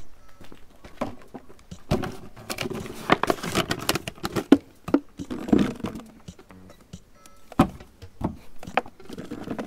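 Hands handling a clear plastic jar of small toy balls and opening its red plastic lid: irregular clicks, knocks and crinkles. Background music plays.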